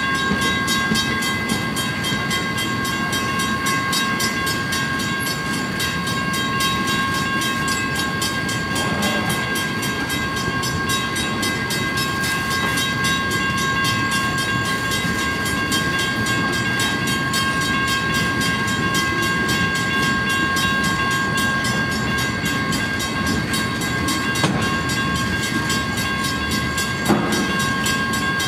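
Loaded freight flatcars rolling past: a steady rumble of wheels on rail with a few steady high tones held over it, and a couple of small knocks near the end.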